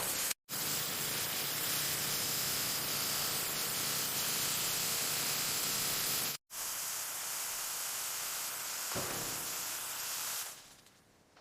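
A steady hiss, broken twice by brief dropouts, fading out near the end.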